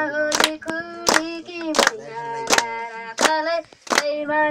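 A boy singing a song into a microphone, holding long notes, while a group claps a steady beat, about six claps over four and a half seconds.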